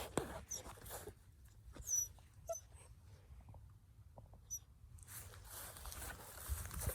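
A puppy giving a few short, high-pitched squeaks and whimpers over scattered rustling, with the rustling growing steadier near the end.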